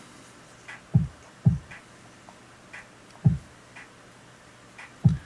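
Four soft low thumps with a few faint light clicks between them, from a small plastic bottle of isopropyl alcohol being opened and set down on a silicone bench mat.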